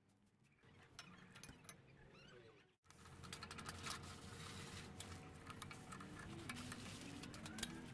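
Faint small metallic clicks and rattles of hand work: a bolt handled in locking pliers, then a drill-press chuck being closed by hand and tightened with a chuck key.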